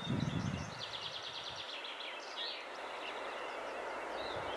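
Small birds singing repeated trills over the steady, distant rumble of an approaching TEP70 diesel locomotive, which grows slightly louder toward the end. A brief low rumble sounds at the very start.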